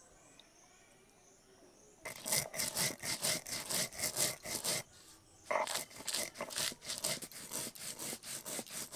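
Mustard seeds and green chillies being ground on a flat grinding stone (shil-nora), the hand stone rubbed back and forth in rapid, rhythmic rasping strokes. The grinding starts about two seconds in and stops briefly near the middle before going on.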